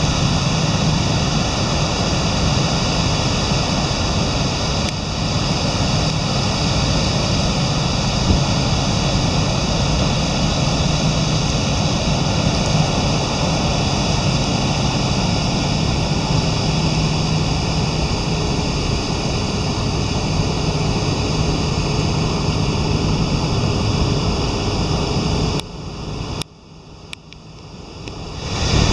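Steady rush of heavy river flow pouring through a dam's open spillway gates and churning the tailwater. Near the end it drops away sharply for about two seconds, then comes back.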